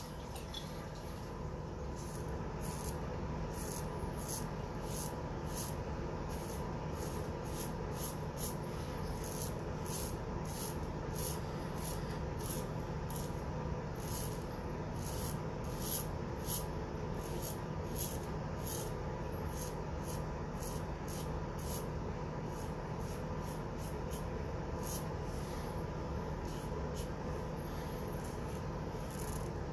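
R41 safety razor with a Treet blade cutting through lathered stubble: short scraping strokes, one after another, over a steady low hum.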